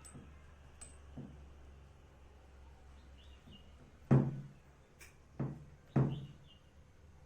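Hard objects being handled and knocked together: three loud clunks about four, five and a half and six seconds in, with a few light clicks earlier, over a low steady hum.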